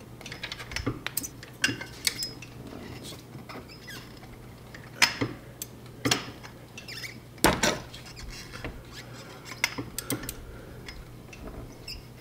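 Scattered metal clinks and knocks from a floor-jack handle used as a breaker bar on a 24 mm socket, as the crank pulley bolt of a C6 Corvette's LS V8 is strained at and the socket is repositioned. The loudest knocks come about five, six and seven and a half seconds in, over a faint steady low hum.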